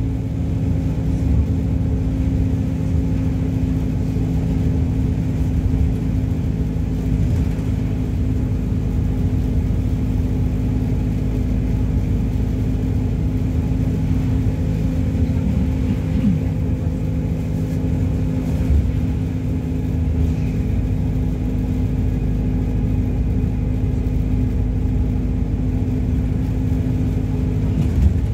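MAZ-226 bus heard from inside the cabin while driving at a steady speed: its engine runs on an even note over low road rumble.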